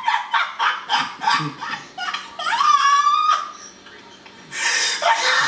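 Hard laughter in rapid repeated bursts, then a drawn-out, rising high-pitched vocal squeal. After a short lull a loud, noisy stretch comes in near the end.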